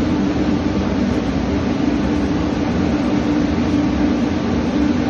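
Steady machinery drone aboard a gas tanker lying at anchor: an even low hum with a rumble beneath, unchanging throughout.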